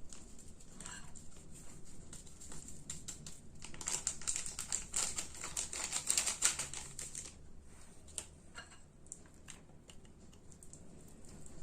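Flour being mixed into a soft dough in a mixing bowl: rapid light clicks and taps against the bowl, busiest in the middle.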